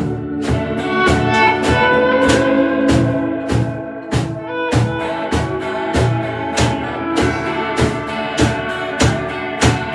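Live band instrumental in a Middle Eastern–Turkish folk style: two electric guitars play a lead melody with sustained, bending notes over a drum kit keeping a steady beat.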